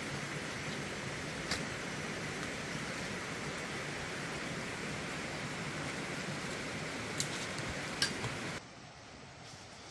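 Steady, hissing outdoor forest background with a few sharp snaps or clicks, likely twigs and footsteps. Near the end it drops suddenly to a quieter hush.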